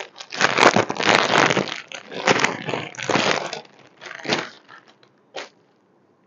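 Clear plastic packaging bag crinkling and crackling as a folded kurti is pulled out of it, loud for about three seconds. Two short rustles follow, then it stops.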